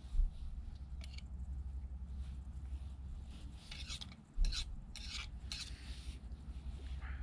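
Scraping and rubbing as noodles and a utensil are worked in a Kovea Alpine Pot Wide and its small metal bowl, in short scratchy bursts, with two dull thumps, one just after the start and one about four seconds in. A steady low rumble runs underneath.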